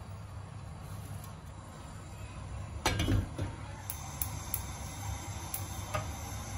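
Kitchenware clinking: a short clatter about three seconds in, then several light, separate clinks, over a steady low hum.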